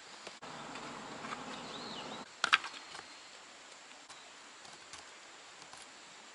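A buzzing hum for about two seconds, then one sharp knock, the loudest sound, followed by a few faint clicks.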